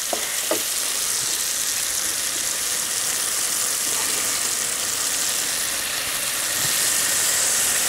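Chopped onions frying in oil in a pot for pilau: a steady sizzle, a little louder in the last second or so. The onions are just starting to turn colour.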